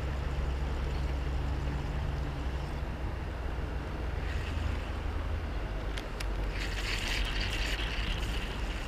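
Steady low rumble of road traffic on a highway bridge. About six seconds in come a few sharp clicks, then a rising hiss that lasts a couple of seconds.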